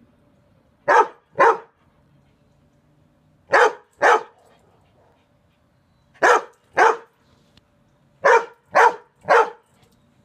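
Golden retriever barking: nine loud barks, in three pairs about half a second apart with pauses of a couple of seconds between them, then three in a row near the end.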